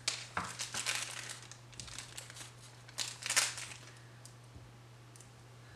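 Clear plastic sticker bag crinkling as it is handled, in two bouts: one over the first second and a half and a shorter, louder one about three seconds in.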